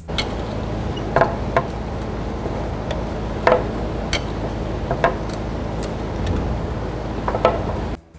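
A wrench clinking against the rusted parking brake cable adjuster nut as it is worked loose after a soak of penetrating spray: sharp metallic clicks at irregular intervals, roughly one a second, over a steady low hum.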